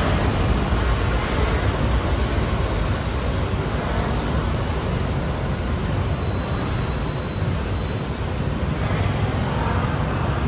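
Steady city road traffic from the busy multi-lane road below: cars, motorbikes and a city bus. A brief high squeal comes in about six seconds in and lasts a second or so.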